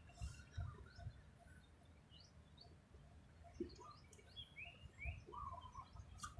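Birds chirping faintly, many short notes that slide up or down, over a low rumble.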